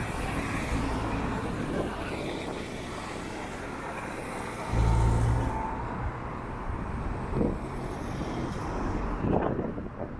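Urban street ambience with road traffic passing off-picture. A heavier low rumble comes about five seconds in, and a couple of short knocks come near the end.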